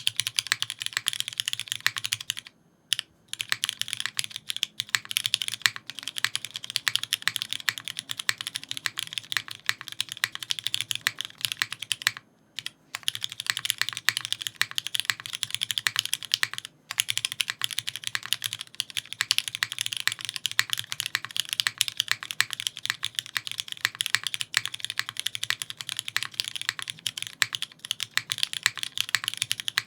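Continuous fast typing on a Kohaku custom mechanical keyboard with lubed and filmed Cherry MX2A Black linear switches on an aluminium plate, GMK keycaps and no sound dampening: a dense run of keystroke clacks. The typing stops briefly a few times, about 3 seconds in, near the middle and once more shortly after.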